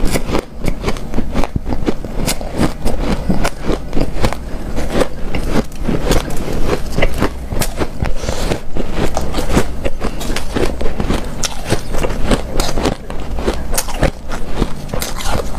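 Close-up chewing of hard, snow-like powdered ice (refrozen freezer-frost ice): a dense, continuous run of crisp crunches and crackles.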